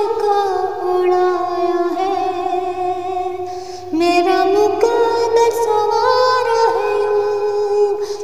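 A woman singing a Hindi song in long, held notes with a waver on them; one phrase tails off about two seconds in and a new phrase starts about four seconds in.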